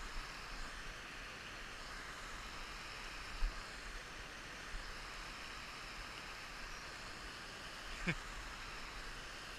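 Steady rushing of a rocky hill stream tumbling over stones. Near the end a dog gives one short whine that falls in pitch.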